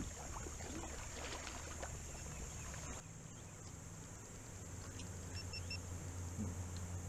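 Faint outdoor ambience: a steady high drone over a low rumble, with a few short, faint chirps about five seconds in.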